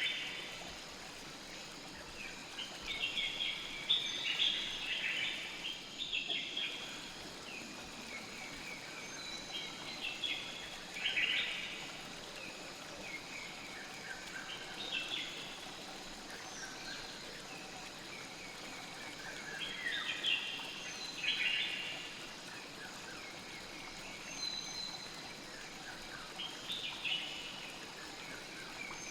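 Songbirds singing short chirping phrases every few seconds over the steady rush of a flowing river or stream.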